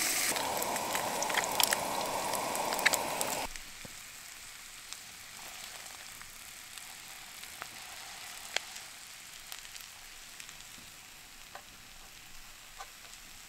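Meat and eggs frying in a frying pan, a steady sizzle with scattered sharp pops. About three and a half seconds in it drops suddenly to a quieter sizzle with an occasional pop.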